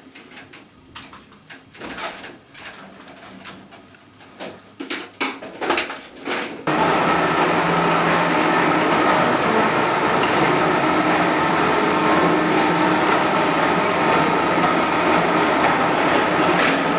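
Light clicks and knocks of hand work with a screwdriver on an electrical training panel. About seven seconds in, this gives way abruptly to the steady running of milling machines and lathes in a machining workshop: a dense, even noise with several steady hums and a whine.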